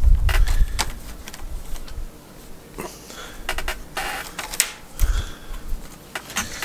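Willow rods clicking, creaking and scraping against each other as a binding rod is woven under and over through the uprights of a willow crab pot, in irregular bursts of sharp clicks. Dull rumbles of the arm brushing close to the microphone come near the start and again about five seconds in.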